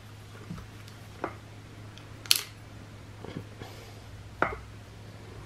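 A few short, sharp clicks and taps from a plastic drink bottle and small fishing tackle being handled while line is wound on the bottle; the loudest click comes a little over two seconds in. A steady low hum runs underneath.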